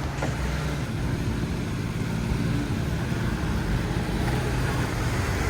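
1965 Ford Mustang's engine running at a steady pace while the car is driven, with no revving. The owners believe the carburetor is flooding and say the car "ain't happy".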